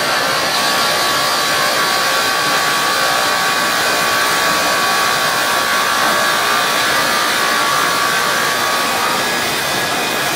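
Fiber cement board production-line machinery running steadily as a board moves along the powered roller conveyor. A loud, even machine noise is heard, with a steady high whine over it.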